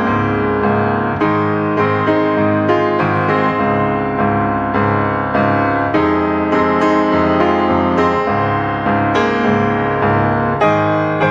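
Background instrumental piano music: a steady flow of struck notes.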